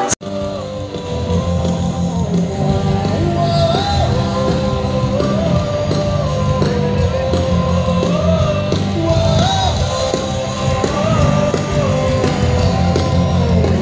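Music with a singer's melody over a steady, repeating beat. It follows a sudden split-second drop right at the start, like an edit cut.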